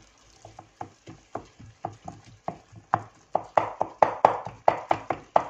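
Wooden spatula scraping and knocking against a metal frying pan, stirring a thick walnut-and-liver paste: a run of short strokes that gets louder and quicker about halfway through.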